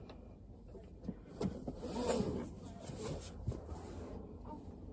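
Quiet parked-car interior: a seatbelt drawn out and pulled across the body, with a few faint clicks and rustles.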